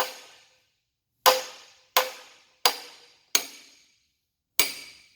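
Hammer blows on a bearing driver tool, tapping the front countershaft bearing onto an FRO16210C truck transmission countershaft: six sharp strikes, each with a short metallic ring, about one every 0.7 s with a longer pause before the last. The bearing is being driven on but deliberately not bottomed out, leaving the countershaft a little movement.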